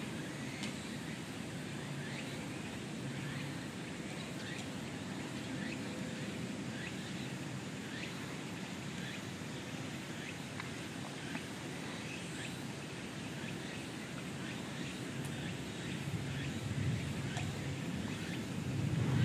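Outdoor ambience: many short, high chirps from small birds, a few every second, over a steady low background rumble that grows louder near the end.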